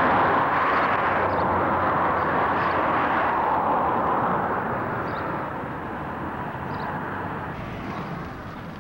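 Outdoor rushing noise with no clear pitch, strongest in the first few seconds and easing off later, with a few faint high chirps now and then.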